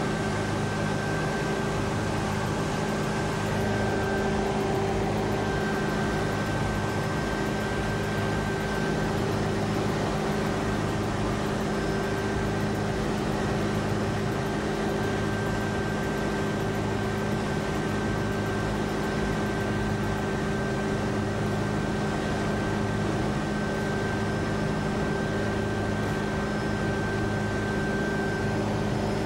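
Steady mechanical drone with several constant hums and a low throb that pulses about once a second.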